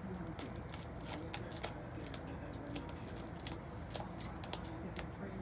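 Packing tape crackling and clicking as it is handled and pressed onto fabric, in irregular sharp crackles.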